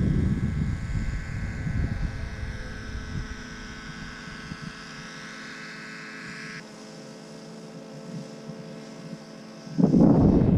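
Aircraft running steadily, a hum of many steady tones whose upper part drops away about six and a half seconds in. Gusts of wind buffet the microphone at the start and again, loudest, near the end.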